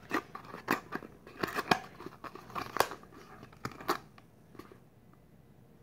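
Irregular light clicks and rattles from small objects being handled by hand, about four seconds of them, then they stop.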